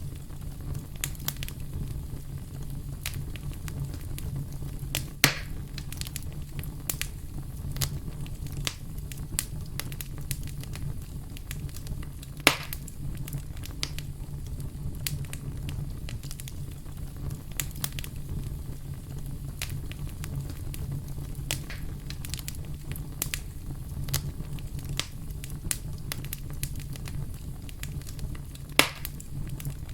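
Fire in a fireplace crackling steadily, with a low steady rumble underneath and three louder, sharp pops: about five seconds in, about twelve seconds in, and near the end.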